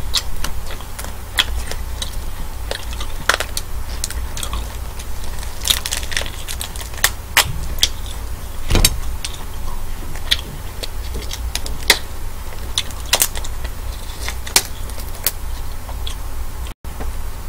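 Shells of cooked king black tiger prawns being cracked and peeled apart by hand: irregular sharp cracks and crackles, several to a second at times.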